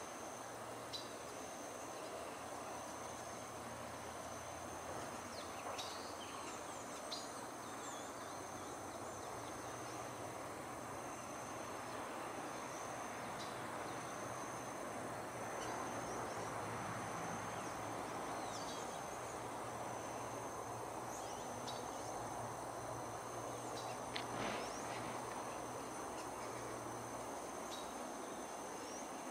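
Steady, high-pitched trilling of insects over a constant background hiss, with a few brief chirps scattered through.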